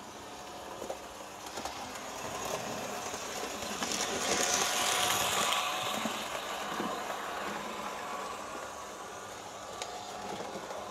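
Märklin 3369 model of an ÖBB class 1118 electric locomotive, fitted with a high-performance (HLA) motor and ball bearings, running light on metal Märklin M-track: motor hum and wheel noise swell as it comes closer, are loudest about four to six seconds in, then ease off as it moves away.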